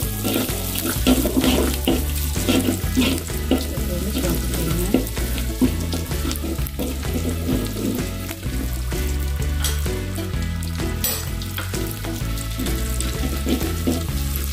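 Minced garlic sizzling in hot oil in an aluminium wok, while a metal spatula stirs it and scrapes against the pan now and then.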